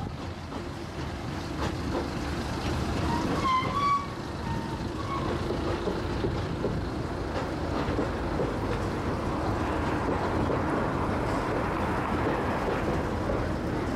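Open-car rail cart rumbling steadily along the track as it passes close by, with a few short high chirps about three and a half seconds in.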